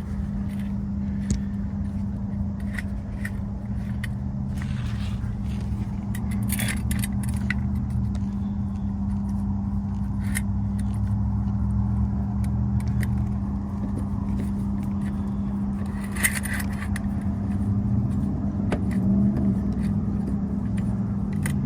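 Scissor jack being spun up by hand under a car: scattered light metallic clicks and scrapes of the jack's screw and arms. A steady low hum with one constant tone runs underneath.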